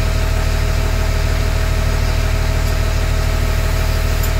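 LMTV's diesel engine idling steadily, heard from inside the cab, while the central tire inflation system is filling the tires after its air valve was reassembled correctly.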